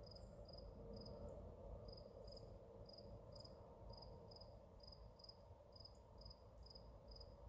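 Faint cricket chirping: short high chirps repeating about twice a second, over near-silent outdoor quiet.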